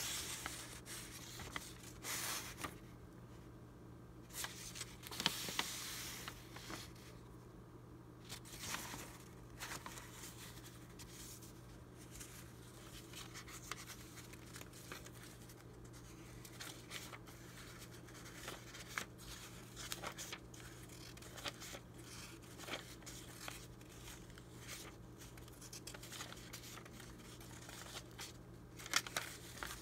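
Old, brittle paper coupon strips rustling and crinkling as fingers flip, bend and fold them, in uneven bursts, with louder rustles near the start, about five seconds in and near the end.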